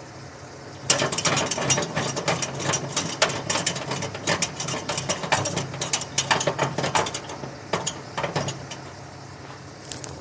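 Ratchet on a tie-down strap being cranked to tighten it down on a load: rapid runs of sharp metal clicks from the pawl, starting about a second in and stopping a little before the end.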